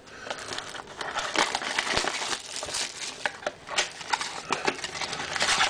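Trading card pack wrappers crinkling and crackling irregularly as the packs are handled and squeezed to feel how thick they are.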